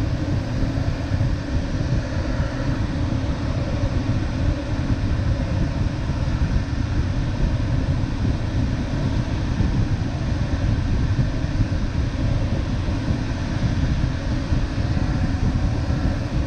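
Steady rush of air over an LS7-WL glider's canopy in flight, heard from inside the cockpit. The noise is deep and even throughout.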